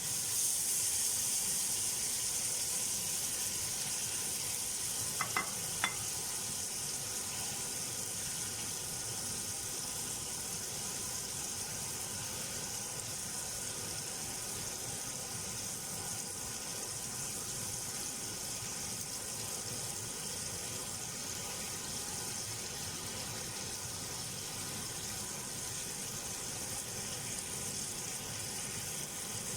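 Food frying in a pan, a steady sizzle that is a little louder in the first few seconds. Two or three sharp clicks come about five to six seconds in.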